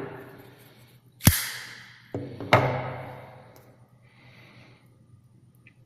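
Hard plastic clamshell packaging being handled: a sharp clack about a second in, then two more knocks close together, each followed by a fading rustle.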